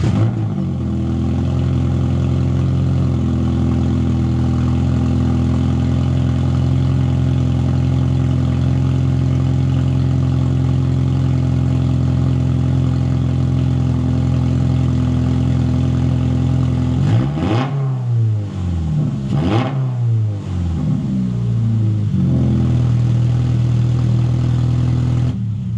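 2025 Toyota GR86's 2.4-litre flat-four running with the cat-back exhaust removed, exhausting straight out after the catalytic converters and headers: it idles steadily, is blipped through a few quick revs about two-thirds of the way through, settles back to idle and is switched off at the very end. Surprisingly not that loud for an open exhaust.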